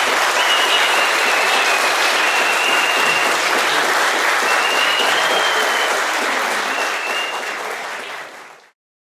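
Audience applauding: dense, steady hand-clapping, with a thin high tone coming and going above it. The applause fades and stops shortly before the end.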